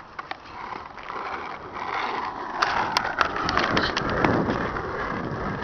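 Skateboard wheels rolling on asphalt, a steady rumble that builds over the first couple of seconds, with a few sharp clicks about three seconds in.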